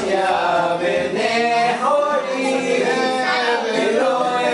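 A group of people singing a Passover seder song together, unaccompanied, with voices holding and sliding between notes.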